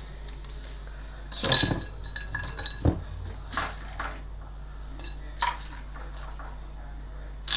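Small metal tools and parts clinking and rattling as they are handled on a workbench: a few scattered knocks, the loudest about one and a half seconds in, over a steady low hum.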